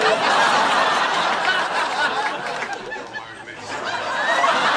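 A room full of people laughing, dipping briefly about three seconds in and then swelling again.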